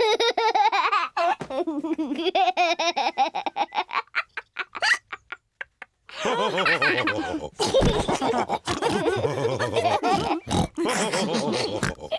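Cartoon pig characters laughing together in rapid pulses. The laughter breaks off into about a second of silence roughly five seconds in, then more voices follow.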